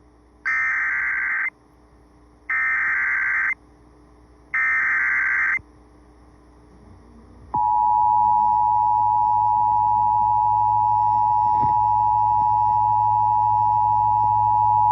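Emergency Alert System tones on an FM radio broadcast: three one-second bursts of SAME header data, then after a short pause the steady two-tone EAS attention signal starting about seven and a half seconds in. The tones announce a severe thunderstorm warning.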